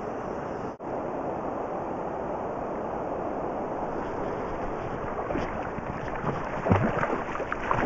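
Steady wind and river noise on the microphone, briefly cut out just under a second in. From about five seconds in come irregular splashes as a hooked Atlantic salmon thrashes in the shallows at the bank.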